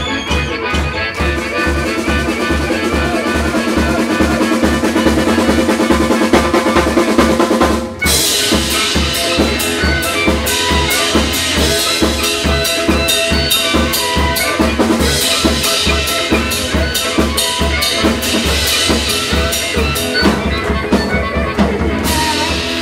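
Live blues band playing an instrumental break: harmonica playing long held notes over acoustic guitar and a drum kit with a steady bass-drum beat. About eight seconds in, the sound dips briefly, then cymbals come in brightly and the drums carry on with the band.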